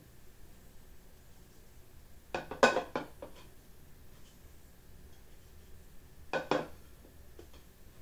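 White bowls clinking and knocking as they are handled and set down on a wooden tabletop, in two short clusters of clatter, about two and a half seconds in and again about six and a half seconds in.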